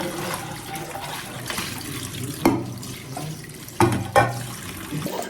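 Tap water running into a sink, starting suddenly with a click, with three sharp knocks along the way.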